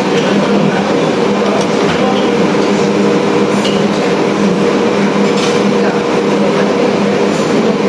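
A loud, steady mechanical hum with a rushing noise over it, unchanging throughout, with a few faint clicks.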